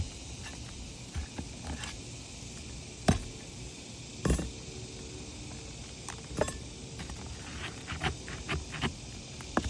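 Hand-tool work on old asphalt shingles: scattered sharp taps and knocks, with a quick run of clicks near the end, over a steady hiss.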